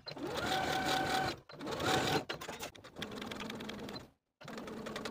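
Electric domestic sewing machine edge-stitching a folded heavyweight linen pocket flap, running in about four short runs with brief stops between: a steady motor whine over rapid needle ticking. The pitch rises as the first run starts, and the later runs are quieter.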